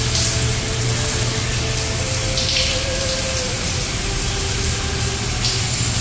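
Overhead spa rain-shower head running, water falling steadily onto the tiled floor with an even hiss.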